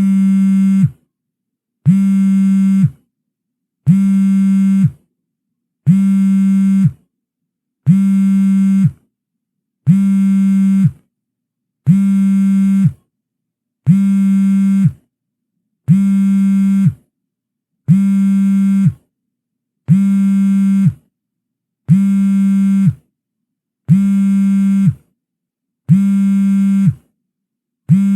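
Phone vibration ringtone: a low, steady buzz lasting about a second, repeating every two seconds with silent gaps between, about fourteen buzzes in all.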